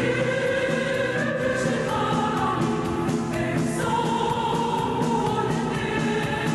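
A mixed choir singing a sacred song in long held chords that change every second or two.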